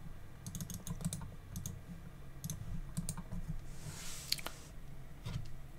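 Sparse clicks of a computer keyboard and mouse in small clusters, over a low steady hum, with a short hiss about four seconds in.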